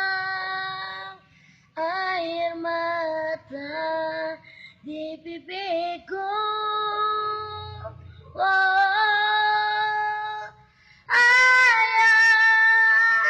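A young solo singer's voice singing a slow Indonesian ballad. Long held notes with a slight waver come in phrases separated by short breaths, and the phrase starting near the end is the loudest.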